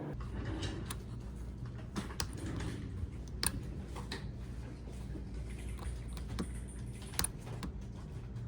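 Typing on a mechanical keyboard: irregular key clicks with a few sharper strokes, over a low steady hum.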